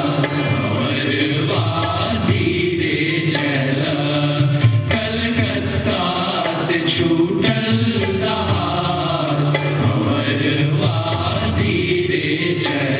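A group of singers chanting a song together live on stage, with a steady instrumental drone and regular drum strokes. It is an old song of the Indian immigrants about the sea voyage.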